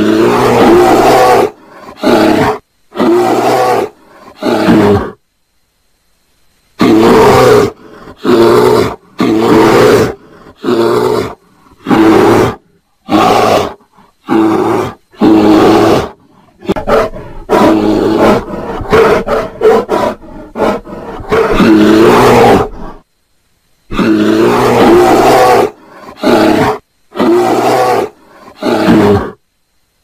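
Bear growling and roaring in a long series of loud calls about a second each, every call breaking off sharply into silence, with a quicker run of short growls in the middle.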